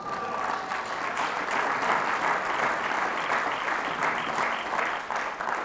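Audience applauding: many people clapping together. The clapping starts at once and tapers off near the end.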